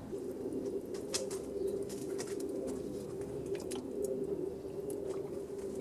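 Charcoal embers crackling with scattered faint ticks, over a steady low hum.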